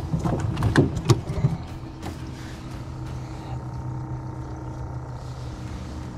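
A few sharp knocks and thumps in the first second and a half, then a small motor humming steadily at one even pitch.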